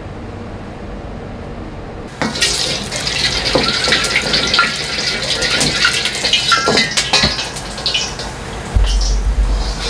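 Hot iron wok being rinsed with water, hissing and splashing, with a metal ladle scraping and knocking against the pan. It starts suddenly about two seconds in after a quieter stretch, and a low rumble joins near the end.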